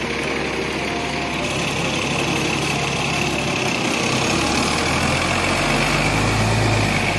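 Diesel engine of an Alexander Dennis Enviro500 double-decker bus running as the bus passes close by, over steady city street noise. The engine grows louder from about five seconds in.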